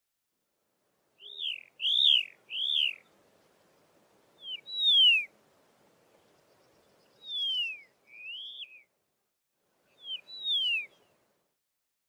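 Karoo long-billed lark calling: clear whistled notes that arch up and slide down, given in four short groups of two or three notes.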